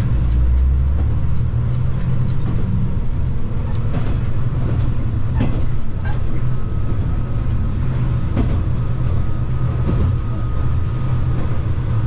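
KiHa 120 single-car diesel railcar running along the line, heard from inside: a steady low diesel engine drone with scattered clicks and knocks from the wheels and the running gear. A faint thin whine holds for a few seconds in the second half.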